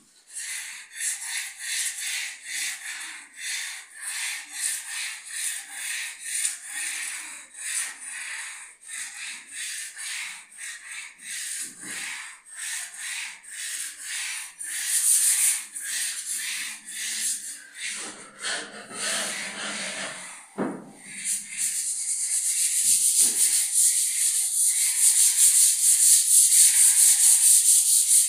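Hand sanding block rubbed back and forth over a laminated board: a scratchy hiss in rhythmic strokes, about two a second, turning faster and louder over the last few seconds.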